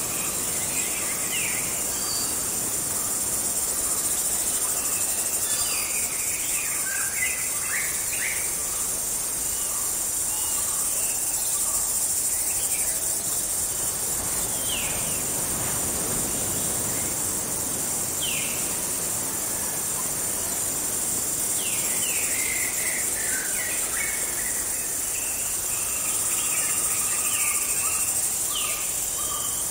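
Tropical forest ambience: a steady high insect drone with birds calling over it, short sharp falling whistles that come every few seconds.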